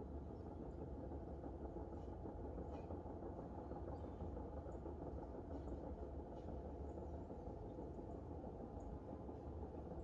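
Steady low outdoor rumble, with faint short high chirps scattered through it.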